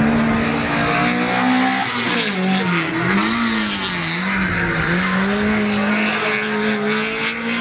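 Peugeot 207 race car's engine at high revs through the corners. Its pitch drops about two seconds in, wavers up and down as the throttle is lifted and reapplied, then climbs slowly again.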